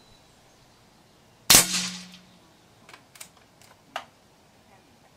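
A single shot from a full-power .30-calibre Daystate PCP air rifle: one sharp, loud crack with a short ringing tail. A few light mechanical clicks follow about a second later.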